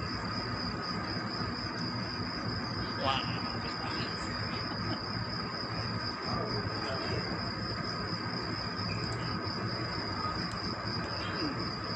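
Steady background drone: a low hum with a continuous high-pitched trill held on one pitch above it. A brief faint sound comes about three seconds in.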